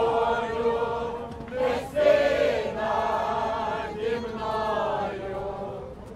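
A group of people singing together, in held phrases a second or two long with short breaks between them.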